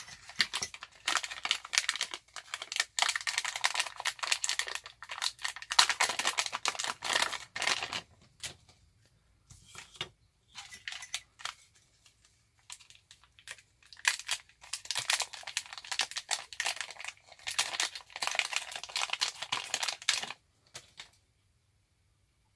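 Plastic anti-static bags crinkling and rustling as they are handled and opened, in two long spells with a short lull between them.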